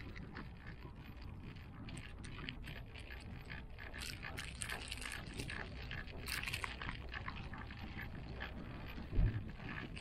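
Ride noise inside a moving gondola cable car cabin: a steady low rumble with scattered light clicks and rattles, a busier run of rattling about four to seven seconds in, and a single low thump near the end.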